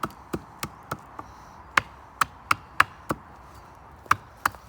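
Origin Knives Bushcrafter axe carving wood: a run of light, quick chopping strikes, about three a second, with a short pause about three seconds in. Each stroke takes off a chip as the wood is shaped and straightened.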